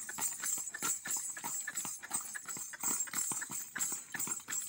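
A horse's hooves stamping and stepping on a dirt lane in quick, irregular beats as it is trained in the chautala dance step, lifting its forelegs in place.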